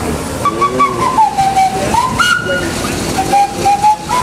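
A whistle sounding a string of held notes, sliding and stepping between higher and lower pitches, with faint voices underneath.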